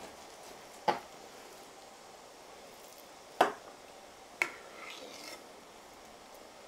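Kitchen knife knocking on a cutting board three times as pork is sliced through for schnitzel, with a brief faint scraping just after the third knock.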